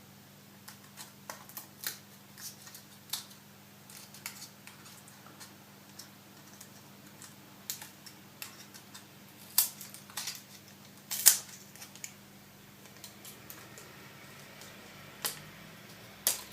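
Scattered small clicks and sharp snaps of a prying tool working a cracked iPhone 4 front glass and LCD assembly loose from its metal frame, the loudest snaps about nine and a half and eleven seconds in.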